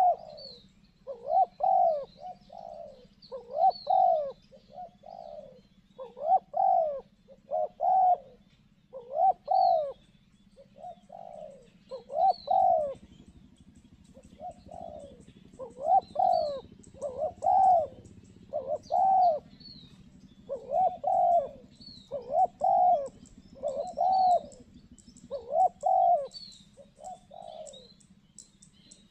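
Spotted doves cooing: a long run of short, repeated coos, many in quick twos and threes, about one a second, with a brief lull about a third of the way in. Faint high chirps of a small bird sound above them.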